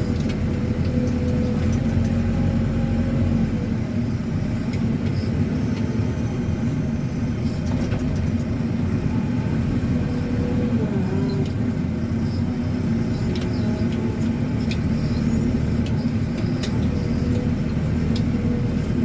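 JCB 4CX backhoe loader's diesel engine running steadily while the front loader bucket works the ditch. Its pitch sags briefly about ten seconds in as it takes load, with scattered light clicks and knocks.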